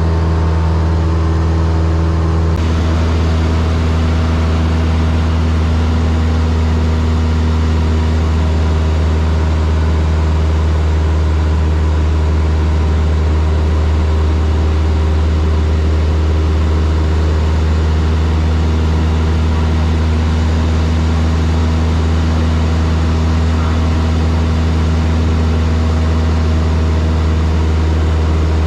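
Steady drone of a Cessna 172's piston engine and propeller heard inside the cabin, with a strong low hum. The tone shifts slightly about two and a half seconds in, then holds steady.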